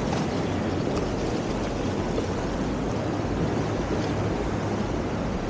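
Steady rushing noise of ocean surf mixed with wind on the microphone.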